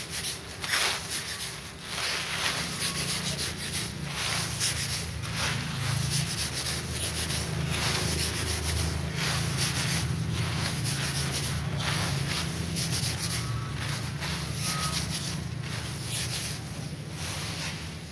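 Rice stalks being threshed by hand: dry straw swishing and rustling in repeated strokes, roughly one or two a second, over a steady low rumble.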